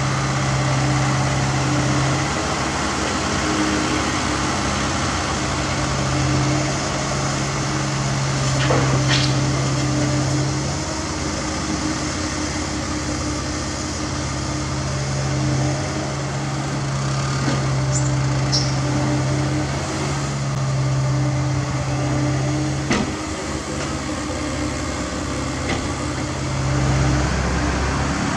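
Diesel engine of a Cat 305.5E2 mini excavator running under working load, its note swelling and easing every few seconds as the hydraulics are worked, with the dump truck's engine running beside it. A few sharp clanks sound over it.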